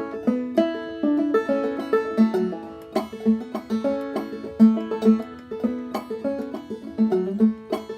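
Solo five-string banjo played clawhammer style in G tuning capoed up to A, a steady run of picked notes with the drone string ringing through.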